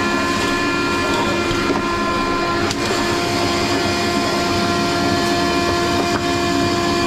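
Shop vacuum running steadily with a constant motor whine, its hose nozzle sucking up debris from a wooden floor. A couple of brief clicks come as bits of debris go up the hose.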